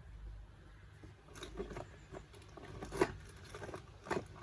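Scattered clicks and knocks of tools and parts being handled, the sharpest about three seconds in.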